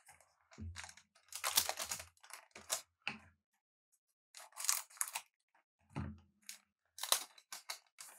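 Trading card booster pack wrapper torn open and crinkled by hand, with cards handled: a run of short, irregular ripping and crackling sounds, the longest stretch about a second and a half in.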